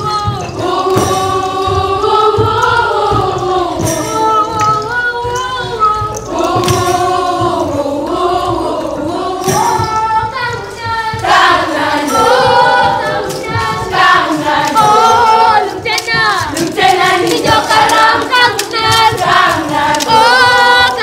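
A group of voices singing a Pokot traditional dance song together, the melody rising and falling in long continuous phrases.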